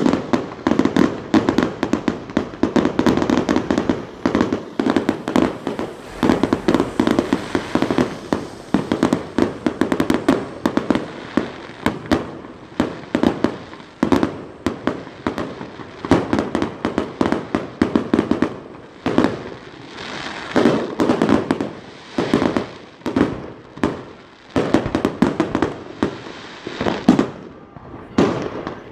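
Aerial fireworks display going off in a dense barrage: sharp reports several times a second, in clusters with brief lulls, as shells burst overhead. The barrage thins out near the end.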